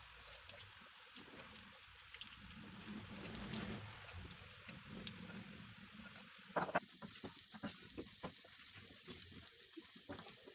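Gram-flour pakora batter deep-frying in hot oil in an iron kadai: a steady faint sizzle with small crackling pops. A couple of sharper knocks come about two-thirds of the way through.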